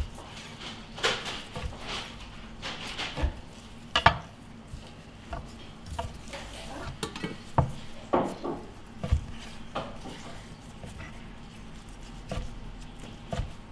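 Kitchen knife slicing through sushi rolls and knocking on a plastic cutting board, in irregular clicks and knocks.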